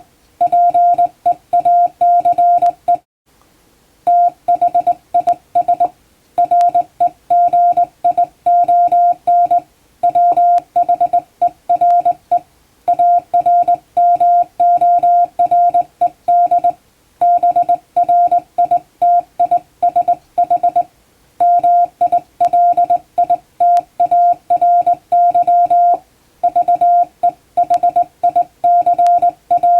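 Hand-keyed Morse code (CW) tone sending plain-language English text: one steady-pitched beep switched on and off in short dots and longer dashes, in letter and word groups separated by short pauses, with a longer pause about three seconds in.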